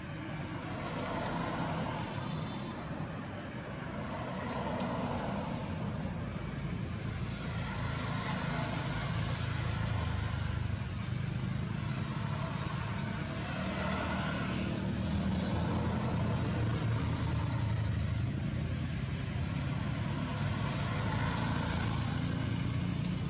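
Road traffic: a steady low rumble, with vehicles passing by and their tyre hiss swelling and fading several times.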